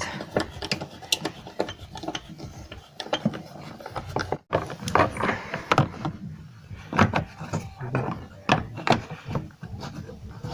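Irregular clicks and knocks of plastic trim parts and fasteners being handled and fitted back into a Lada Granta car door during reassembly.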